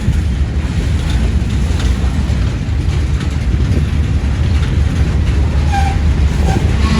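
A train rolling past with a steady low rumble, mixed with wind on the microphone.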